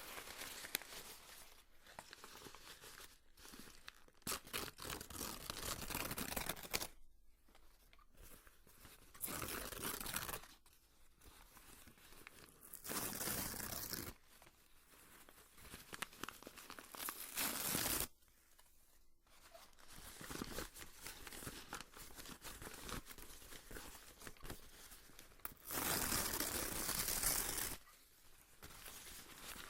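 Paper being torn by hand close to the microphone: several drawn-out rips of one to two seconds each, with crinkling and crackling of the handled paper between them.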